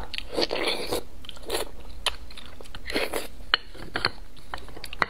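A person eating roasted beef bone marrow at close range: wet chewing and mouth sounds, broken by short sharp clicks and smacks at irregular intervals.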